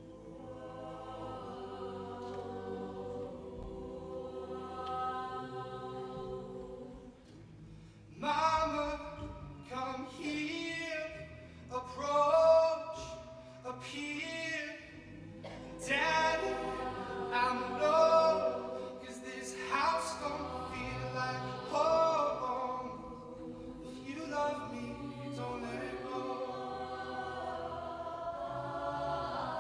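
A cappella group singing: the ensemble holds soft sustained chords, then a male lead voice comes in about eight seconds in and sings louder phrases over the backing vocals.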